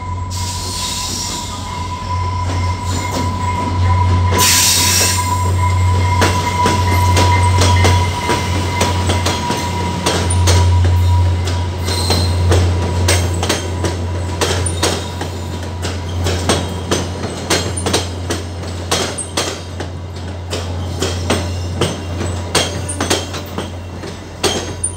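Passenger train arriving, led by an F40PH-2 diesel locomotive: a deep steady rumble from its engine, two short hisses in the first few seconds and a steady high squeal through the first several seconds. As the coaches roll past, a long run of sharp clicks comes from the wheels crossing rail joints.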